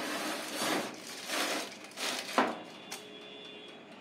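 A foil-lined baking tray being slid onto the rack of a countertop electric oven: aluminium foil crinkling and the tray scraping on the rack in three or four short pushes, then a quieter stretch near the end.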